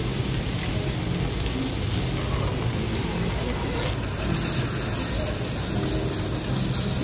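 Hyogo wagyu beef searing on a teppanyaki steel griddle: a steady sizzling hiss.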